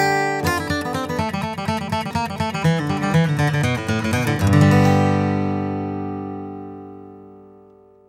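Closing theme music, a fast run of plucked string notes that ends on a chord about four and a half seconds in, which rings on and fades away.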